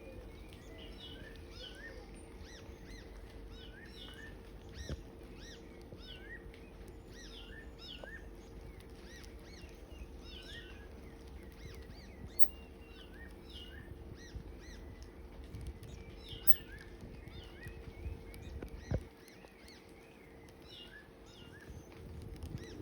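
Repeated short, upswept chirping calls from a wild animal, coming in clusters every second or two over a steady low rumble and hum. A single sharp knock about nineteen seconds in.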